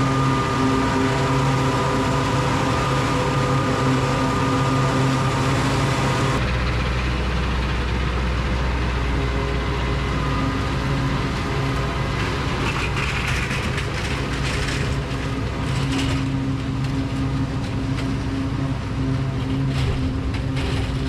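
John Deere 7810 tractor running steadily under load while pulling a Gehl 1085 pull-type forage chopper chopping corn for silage. About six seconds in the sound changes abruptly to a deeper rumble, and later there are scattered crackles and rattles.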